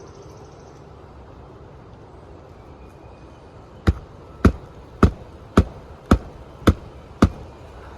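Hammer driving a 1.25-inch roofing nail through an asphalt shingle: seven sharp strikes about half a second apart, starting about four seconds in.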